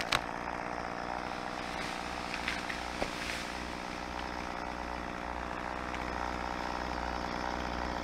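Chainsaw idling steadily after a cut, with a light knock about three seconds in.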